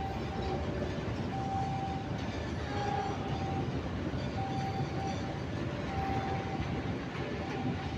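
Freight train of fuel tank wagons rolling slowly past, a steady rumble of wheels on rail. A high tone sounds on and off about every second and a half.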